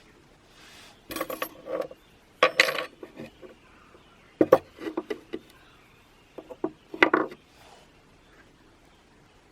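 Metal parts and tools clinking and clattering against each other in four short bouts of sharp strikes.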